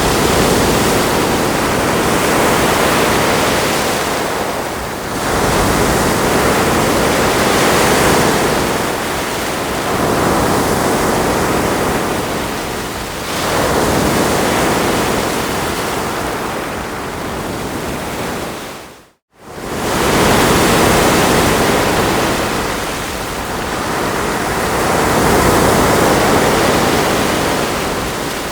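Ocean waves washing onto a shore, a steady rush of surf that swells and eases every four to five seconds. About two-thirds of the way through, the sound drops out briefly and fades straight back in.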